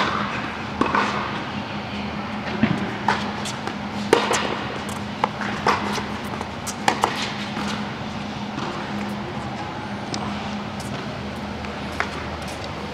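Tennis balls struck with racquets and bouncing on an indoor hard court: a string of sharp, irregular pops through the first seven seconds, then one more near the end, over a steady low hum.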